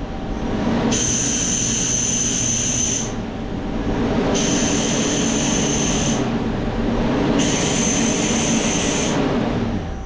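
Puma TT2100 CNC lathe turning a brass part on its sub-spindle. The spindle and machine hum steadily, and three high-pitched cutting passes of about two seconds each, with a hissing whine, are heard as the tool faces and turns the part.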